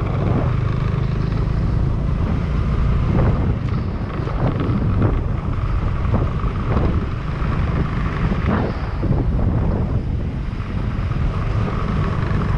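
Riding in a vehicle through city traffic: a steady low engine and road rumble.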